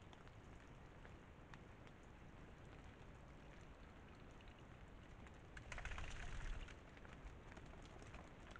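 Faint hiss with scattered light ticks. About six seconds in there is a brief rustling burst, about a second long, as a red deer stag swings and shakes its head.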